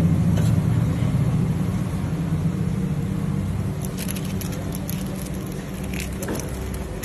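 A motor vehicle engine running as a low, steady rumble that slowly fades. Brief crackles of paper as the sheets are folded around a shawarma roll come about four and six seconds in.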